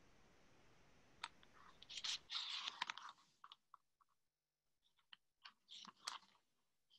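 Close handling noise of a pen and notebook being picked up to write: a burst of rustling about two seconds in, then a series of light clicks and taps. A faint steady hiss cuts off suddenly about two seconds in.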